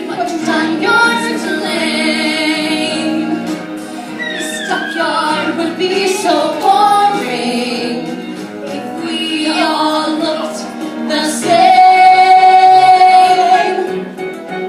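A woman singing a musical-theatre ballad with instrumental accompaniment. About three-quarters of the way through she holds one long, loud note with vibrato.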